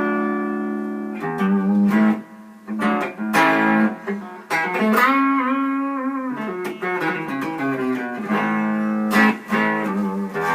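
Electric guitar played through a small single-ended 6V6 tube amp running at 90 volts into a Vintage 30 speaker: picked notes and chords left to ring, with notes bent up and back down about halfway through.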